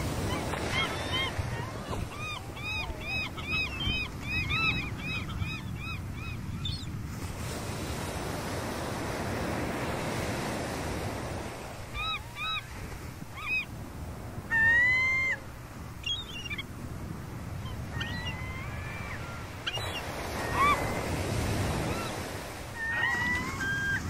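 Gulls calling over the steady rush of breaking surf: a quick run of short yelping notes in the first few seconds, scattered calls after that, and one loud drawn-out call about midway.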